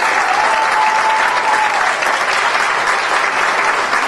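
Theatre audience applauding steadily: many hands clapping at once in a dense, even patter.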